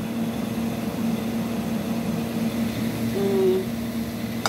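Steady kitchen hum with an even rush of noise behind it while noodles cook in a pan on a gas stove, with a sharp click at the very end.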